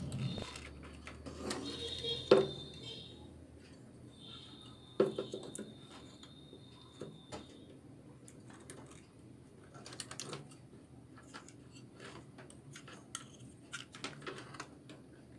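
Clicks, taps and knocks of a CRT TV's main circuit board and its wiring being handled and turned over on the bench, with sharper knocks about two and five seconds in and a cluster near ten seconds.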